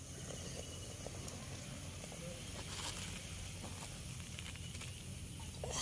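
Faint steady hiss of hot jaggery syrup, boiled to thread stage, fizzing in a metal pan as it is poured over the chana dal and coconut filling, with a couple of soft knocks.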